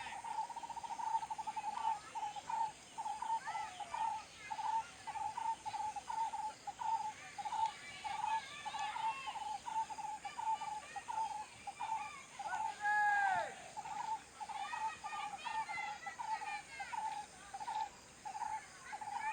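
Birds calling outdoors: a steady run of short, even hoots, about two or three a second, under scattered chirps from other birds. A louder sweeping call comes about thirteen seconds in.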